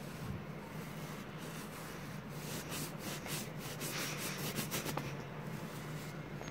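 A hand brushing over a reversible sequin pillow, the sequins rustling and scratching under the palm. In the middle comes a run of quick back-and-forth strokes, about four or five a second.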